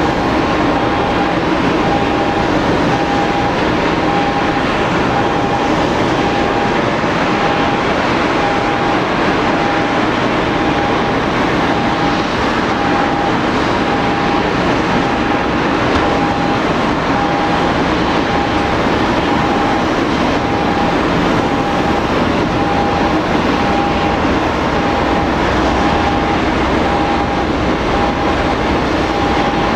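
Steady, loud ground noise of a Boeing 787-8 airliner being towed by a tug, with a short beep repeating about once a second.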